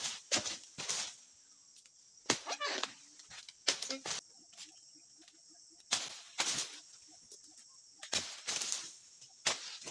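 Dodos, a pole-mounted pruning chisel, striking and cutting through oil palm frond bases: sharp chopping strikes at an uneven pace, roughly one every one to two seconds, some followed by a short rustle.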